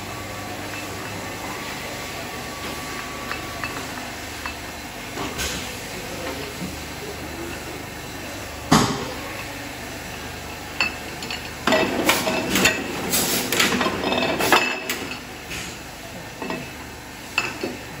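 Sparkling-wine bottling line: glass bottles clinking and knocking against each other and the machine's guides, with sharp mechanical clacks from the wire-cage (muselet) hooding machine. One loud knock comes about nine seconds in, and a run of clattering a few seconds later.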